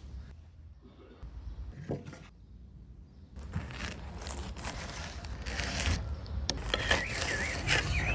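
Scraping and rustling of food being handled and plated, with a few sharp clicks, growing busier about halfway through. A brief warbling squeak sounds near the end.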